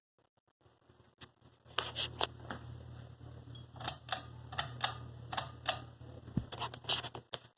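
Hampton Bay Lyndhurst ceiling fan's motor running with a low hum that starts about two seconds in and stops near the end, under a dozen or so irregular sharp clicks.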